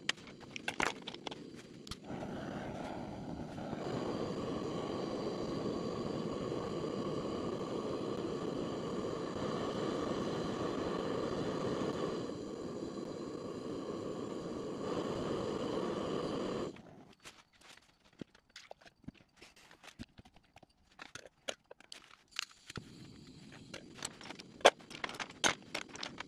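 Gas blowtorch burning with a steady rushing hiss for about fifteen seconds while melting a tin of wax crayons, shutting off suddenly. Before and after it, wax crayons click and clatter against each other as they are picked up and dropped into a steel tin.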